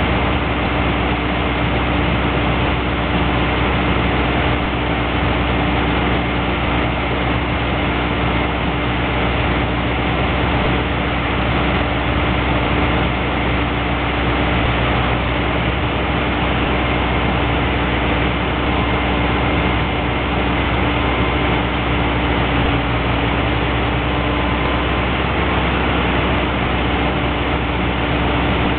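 Drill rig running steadily: a loud, constant engine and machinery noise with a steady hum that does not change throughout.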